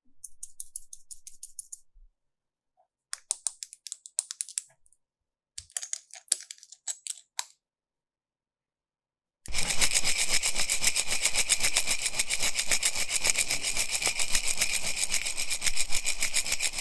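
Slime being worked by hand: three short bursts of fine crackling clicks, then from about halfway a loud, dense, continuous crackling rasp.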